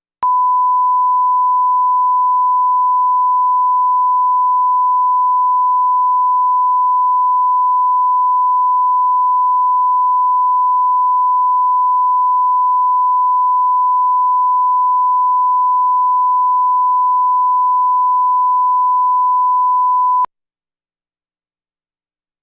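1 kHz line-up reference tone from a broadcast master tape, accompanying colour bars: one loud, steady, unwavering beep that cuts off suddenly about twenty seconds in.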